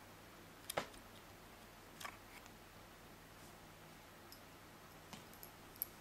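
A few small sharp clicks as a laptop DDR3 SO-DIMM RAM module is worked out of its memory slot; the loudest comes about three quarters of a second in and another just before the end, with near silence between.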